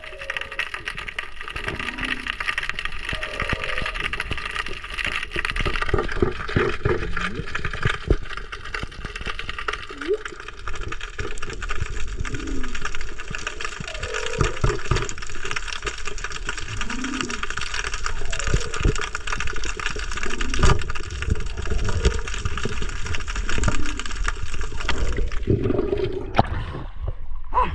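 Water noise picked up by a camera underwater during a spearfishing dive: a steady hiss with gurgles and many small knocks. Every two seconds or so there is a short low sound that rises and falls. The hiss drops away suddenly about a second before the end.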